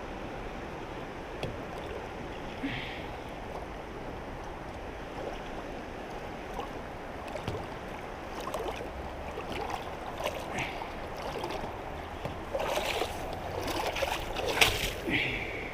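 Shallow creek water running, with splashing, sloshing and knocks from kayaks being walked through the water, busier and louder in the last few seconds.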